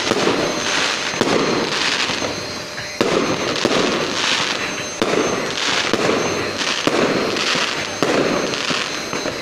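Aerial fireworks going off one after another, with a new bang every second or two. Each bang is followed by a dense hissing crackle as the glittering stars burn out.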